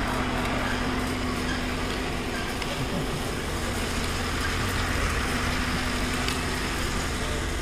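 An engine running steadily at idle, a constant hum under outdoor background noise.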